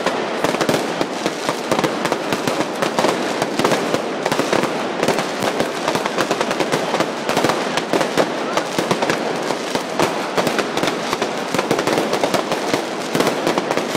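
Fireworks bursting overhead in a dense, unbroken run of bangs and crackles, many a second.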